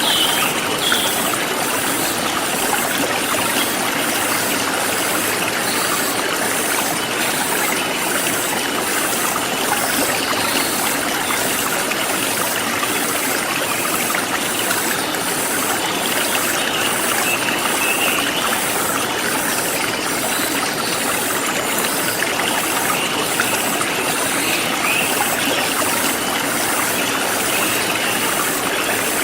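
Forest stream flowing steadily. High-pitched insects chirp in a regular pulse about once a second, and a bird chirps briefly a few times.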